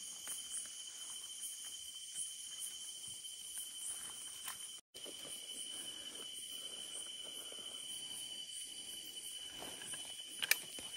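Night insect chorus: crickets trilling in a steady high-pitched drone, with soft rustling of movement through vegetation in the second half and a few sharp clicks near the end.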